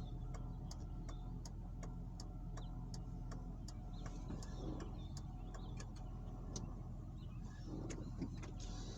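Car engine running with a steady low hum, heard from inside the cabin, with a string of light ticks a few times a second over it.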